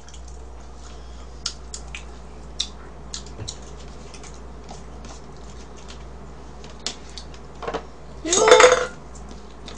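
Cutlery clicking and scraping on a dish while a strawberry cream cake is cut and picked at with a knife and a plastic fork: a scattering of light clicks. Near the end comes a short, loud high-pitched vocal cry.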